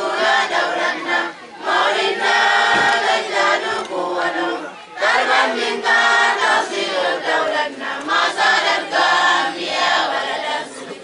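A choir of students singing an Arabic song together, in sung phrases with short breaks between them.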